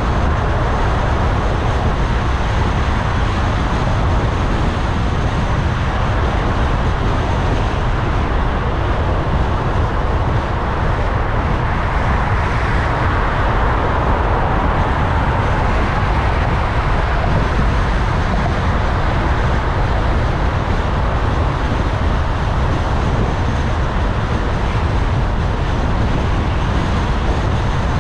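A car driving in city traffic: steady road, tyre and engine noise, unbroken and even throughout.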